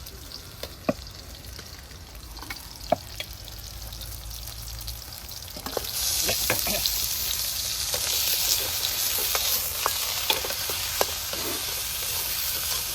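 Pork ribs frying in hot oil in a pan, with sharp clicks of a spatula as they are stirred; the sizzling jumps much louder a little under six seconds in and stays loud.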